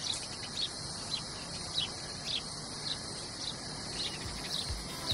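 Nature ambience of a steady high insect hum with a short high chirp repeating about twice a second. A couple of low thuds come in near the end.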